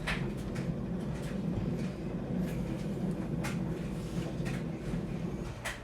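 A steady low rumble with a few scattered light clicks and knocks as metal lighting-stand parts are handled.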